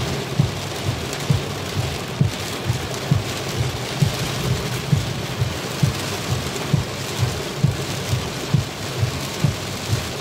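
Heavy squall-line rain pelting a car's roof and windscreen. Over it, the wipers sweep at fast speed and give a low thump about twice a second.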